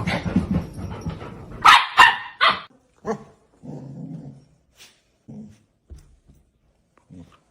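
Dog barking: after a stretch of steady noise, three loud barks come about two seconds in, followed by a few quieter, spaced-out barks and a longer low sound around four seconds in.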